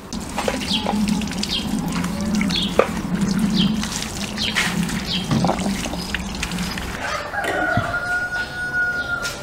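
Chickens clucking and calling, with a rooster crowing one long call over the last two seconds or so.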